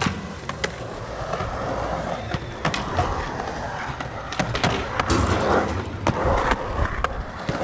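Skateboard wheels rolling on the smooth concrete of a pool bowl: a steady rolling rumble with scattered sharp clicks and knocks. It grows louder about five to six seconds in as the rider carves past close by.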